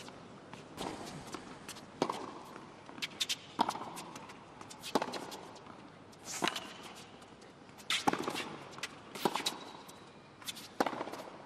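Tennis balls bouncing on an indoor hard court: about ten sharp, separate knocks, roughly a second apart, with a faint background.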